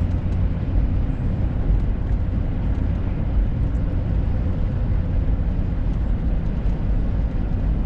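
Steady low rumble of a truck cruising on the road: engine and tyre noise with a broad hiss, even throughout.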